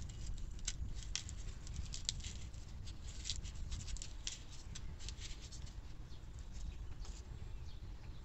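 Dried whole cucumber's papery skin crackling and crinkling as fingers break it open and work the seeds out, in quick dry crackles that thin out after about five seconds, over a low steady rumble.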